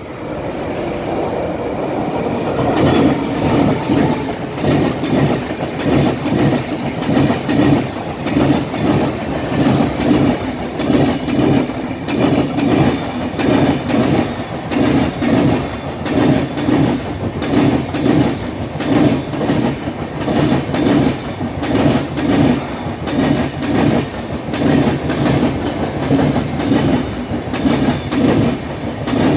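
Express passenger train passing at restricted speed, its wheels clattering over rail joints in a steady repeating rhythm. The sound builds over the first few seconds as the locomotive comes up, then holds loud as the coaches run past.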